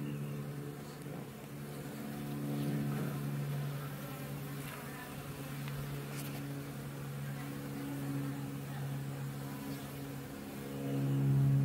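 Honeybees buzzing around an open hive: a steady droning hum that rises and falls, swelling loudest near the end.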